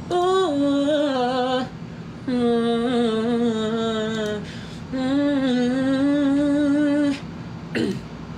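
A male singer's unaccompanied voice sings three long held notes with vibrato, without clear words, followed by a short falling vocal sound near the end.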